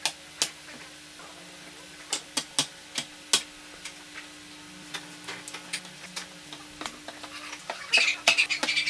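Aluminium linear bearing blocks and shaft supports being set down and handled on a wooden board: scattered sharp clicks and knocks, then a quick run of metallic clinking near the end as the blocks knock together, over a faint steady hum.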